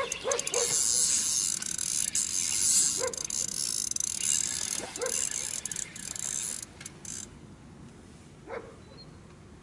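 A dog whining in short high yelps, about five times. Under them a steady hiss with mechanical clicking, which stops about seven seconds in.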